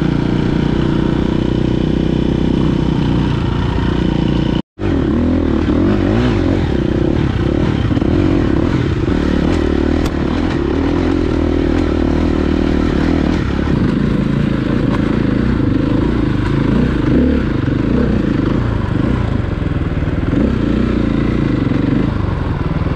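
Dirt bike engine running and revving up and down with the throttle while riding trail, with clatter from the bike over rough ground. The sound cuts out for an instant about five seconds in.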